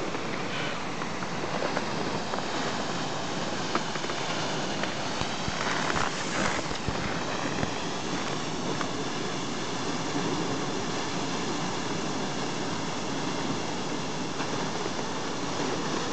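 Steady rushing of a large waterfall, partly encased in ice, with mist rising below it. A brief louder rustle comes about six seconds in.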